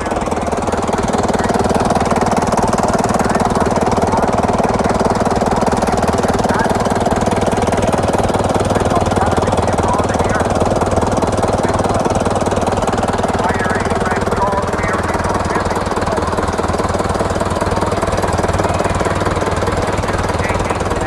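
Vintage tractor engine running steadily and loud, a fast even clatter of firing strokes.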